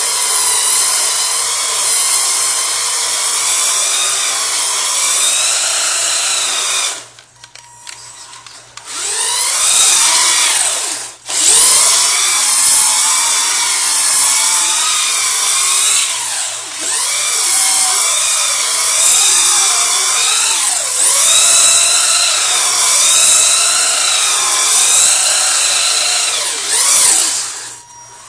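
Duratrax Evader RC truck's Titan electric motor whining at high revs while the truck spins donuts in a shallow puddle, its pitch swinging up and down with the throttle. The whine cuts out for a couple of seconds about seven seconds in and again briefly near the end.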